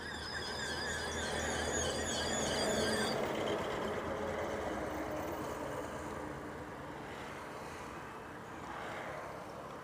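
A high, warbling squeal for the first three seconds over the rumble of a motor vehicle passing close by, which grows louder to a peak about three seconds in and then fades.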